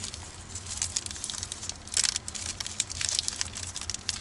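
Crinkling and tearing of a food package's wrapper being peeled open by hand, in uneven crackly bursts, loudest about two seconds in and again around three seconds. A low steady hum runs underneath.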